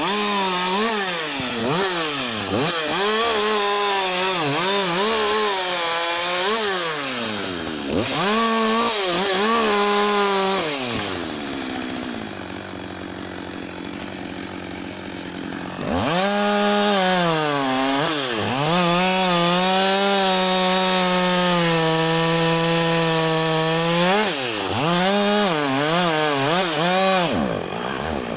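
Husqvarna 560 XP two-stroke chainsaw cutting wood at high revs. Its pitch dips and recovers again and again as the chain takes load. It drops back to a quieter idle for a few seconds near the middle, then revs up and holds a steady high pitch through a long cut, with more dips near the end.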